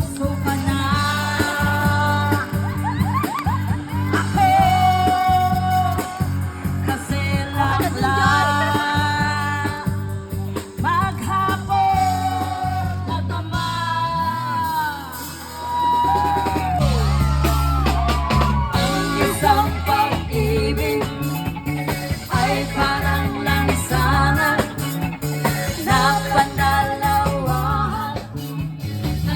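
Music with a singer's voice over guitar and a steady bass line; the bass drops out for a couple of seconds about halfway through, then comes back.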